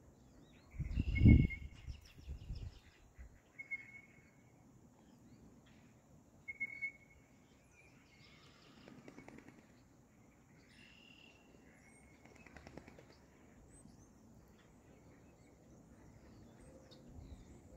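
Birds chirping briefly every few seconds over a faint, steady outdoor background, with one short, loud, low rumble on the microphone about a second in.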